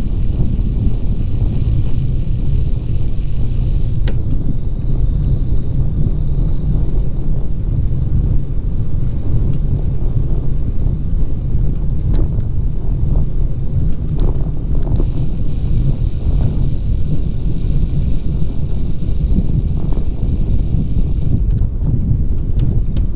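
Wind buffeting the microphone over a steady low rumble, as from a camera on a moving bicycle. A faint high hiss drops out about four seconds in and comes back for a while later.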